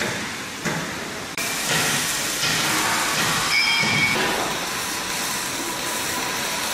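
Dredge's marine diesel engine running, heard up close in the engine room as loud, steady mechanical noise with a strong hiss. The noise jumps louder suddenly about a second and a half in.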